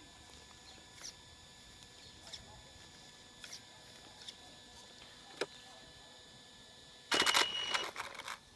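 HPI Savage XS Flux brushless electric RC monster truck pulling away in reverse: about seven seconds in, a burst of gravel crunching and spitting under the tyres with a brief high motor whine, lasting about a second. Before that, only a few scattered small clicks.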